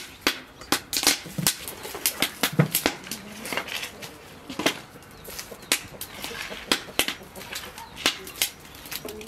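Small kitchen knife cutting and peeling red onions held in the hand, an irregular run of sharp cuts and crunches through the skin and flesh, two or three a second.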